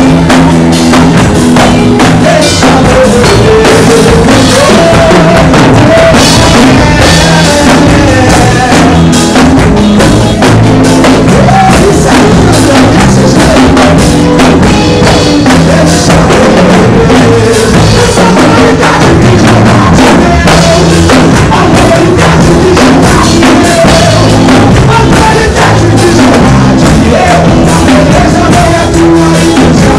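A live gospel band plays at full volume: drum kit, electric guitar and bass, with a man singing into a microphone over them.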